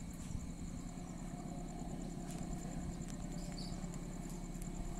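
Faint outdoor ambience: a low, steady rumble of distant traffic, with an insect's rapid, evenly repeating high-pitched chirping over it.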